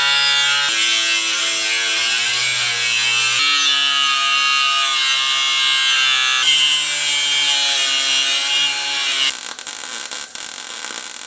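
Angle grinder cutting the steel engine-cradle plate, a loud motor whine over a hiss of grinding, its pitch shifting in steps as the load changes. About nine seconds in it gives way to the quieter, crackling hiss of a welding arc.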